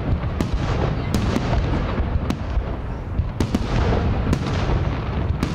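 Aerial firework shells bursting overhead: a string of sharp bangs and cracks, sometimes several close together, over a continuous deep rumble.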